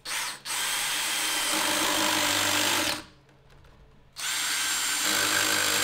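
Yellow cordless drill/driver running under load into a wooden frame: a short blip, then two steady runs of about two and a half seconds each with a pause between, typical of driving screws.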